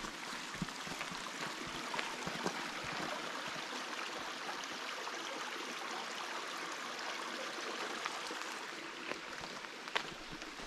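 Small woodland brook running over rocks, a steady rush of water. A few footsteps crunch on gravel near the start and again near the end.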